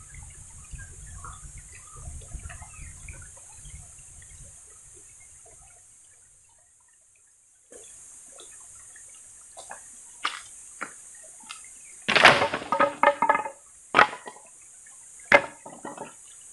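Sharp knocks and clacks from a man crossing a stony creek bed with a bundle of firewood on his shoulder. They come from about two-thirds of the way in and are loudest in a quick cluster a little past the middle. Under them runs a steady high hiss, with a low rumble in the first few seconds and a brief dropout to near silence around a third of the way in.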